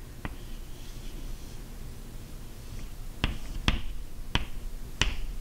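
Chalk writing on a blackboard: five sharp taps of the chalk against the board, one near the start and four in the last two and a half seconds.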